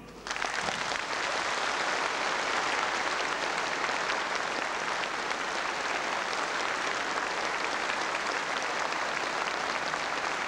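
Large audience applauding. The clapping breaks out a moment after the start and holds steady.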